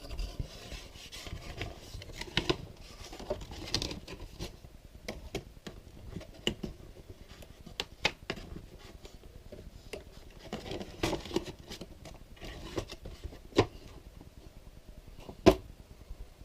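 Objects being handled and unpacked on a table: rustling of packaging with scattered light clicks and knocks, and one sharp knock near the end.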